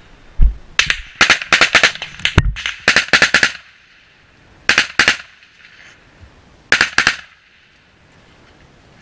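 Small-arms gunfire at close range: rapid strings of shots for the first three and a half seconds, then two short bursts about five and seven seconds in. Two heavy low thumps come about half a second and two and a half seconds in.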